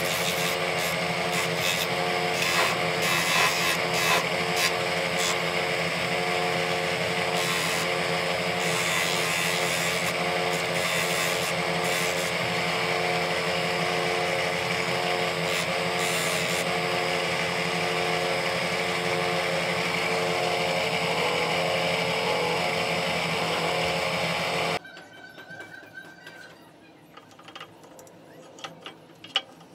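Electric motor spinning a shaft-mounted sanding disc, running steadily with several steady tones, while a carved wooden piece is pressed against it in short bouts of sanding. The running stops abruptly about 25 seconds in, leaving a few faint handling clicks.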